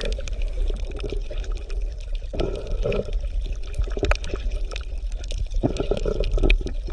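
Water bubbling and gurgling with many small irregular pops, over a steady low rumble.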